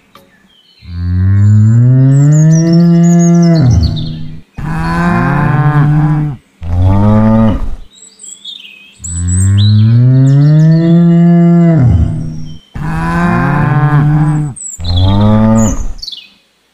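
A cow mooing: one long low moo followed by two shorter ones, then the same three-moo sequence again almost identically, a looped stock sound effect.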